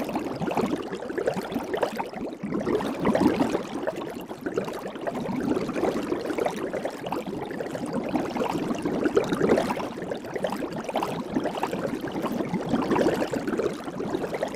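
Soap bubbles or soapy foam bubbling, a dense run of small irregular pops and gurgles that swells and eases without a break.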